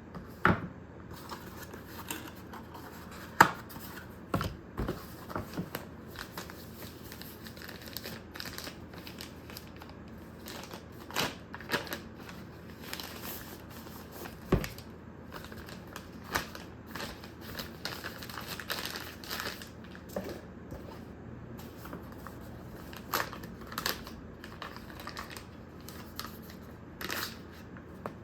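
Product packaging being handled during an unboxing: crinkling and rustling of wrapping, broken by scattered sharp clicks and knocks. The loudest is a single knock about three seconds in.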